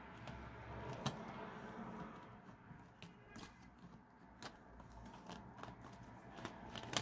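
Hands handling an open plastic CD jewel case and its paper booklet: faint rustling and scraping, with a few sharp plastic clicks, the loudest near the end.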